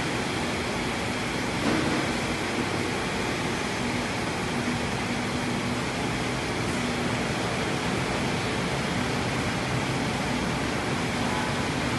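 Steady rushing background noise with a faint low hum, and a soft bump about two seconds in.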